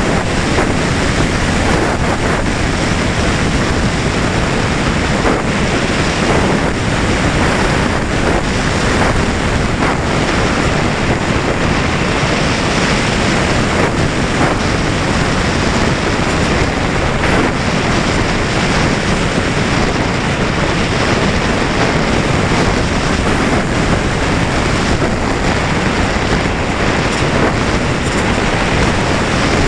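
Steady rush of airflow over the microphone of a camera mounted on the wing of a Valenta Volcano R/C sailplane in flight, with no motor whine.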